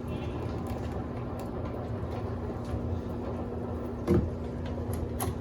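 Electrolux Turbo Compacta LTC07 washing machine running with a steady motor hum and low rumble, its drum turning slowly, with faint ticks and a single knock about four seconds in.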